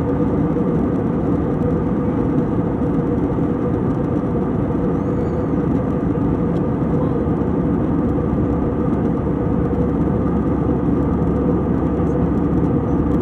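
Jet airliner cabin noise at cruise altitude, heard from inside the cabin: a steady, even rush of engine and airflow sound with a faint hum running through it.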